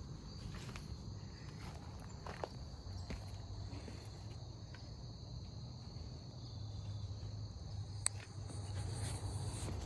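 Insects trilling steadily in the background over a low hum, with a sharp click about eight seconds in.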